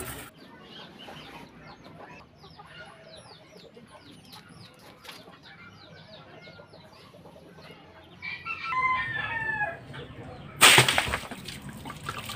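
Chickens in a yard: a run of short high chirps, then a rooster crows about eight seconds in. A loud, sudden burst of noise comes near the end.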